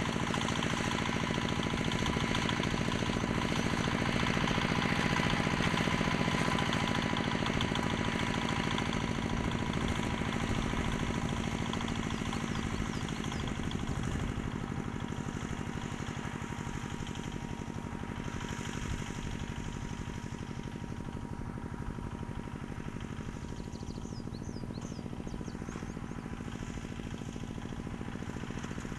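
Homemade motoblock-based mini tractor's engine running steadily while it drags hay, growing slowly fainter as the tractor moves away.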